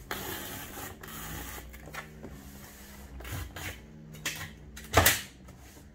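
Packing tape being run off a handheld tape-gun dispenser across a cardboard box, with a rasping tear in the first second, then scattered knocks and a sharp thump about five seconds in.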